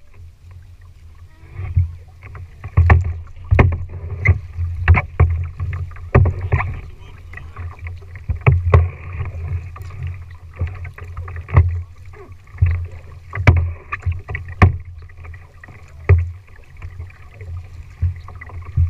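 Tandem plastic kayak being paddled: sharp knocks and splashes of the paddle strokes, irregular but roughly one a second, over a steady low rumble carried through the hull.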